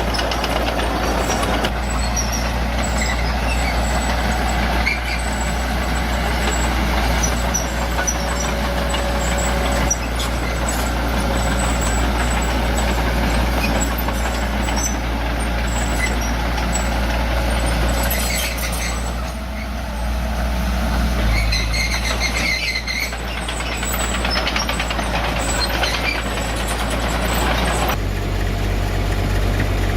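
Bulldozer's diesel engine running steadily, with the engine note changing lower near the end.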